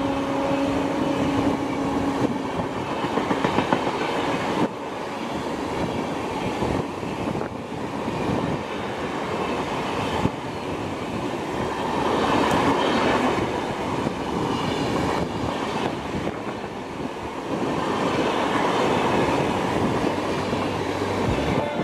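A train horn trails off over the first couple of seconds. Then a Rajdhani Express's LHB coaches run past close by, their wheels clattering over the rail joints.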